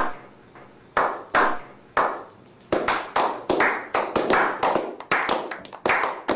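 Slow clap by a small group of men: single hand claps about a second apart at first, quickening into a faster, overlapping round of clapping from about three seconds in.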